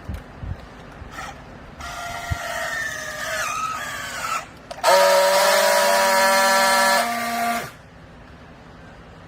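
Vertical hydraulic clothes baler running: a whine that wavers in pitch, then about a second later a loud, steady whine for nearly three seconds that stops abruptly.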